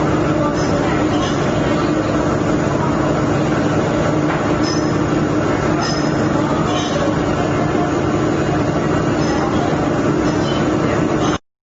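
Steady, loud mechanical din of running industrial machinery, with a constant low hum and brief high-pitched squeaks now and then. It cuts off suddenly near the end.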